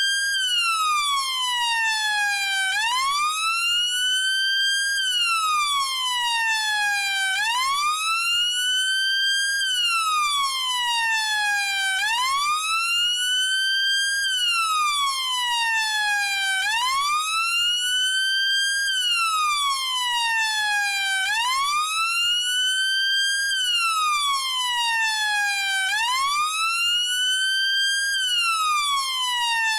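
UK police car siren sounding its wail tone. The pitch sweeps up quickly, levels off, then slides steadily back down, repeating about every four and a half seconds at an even level.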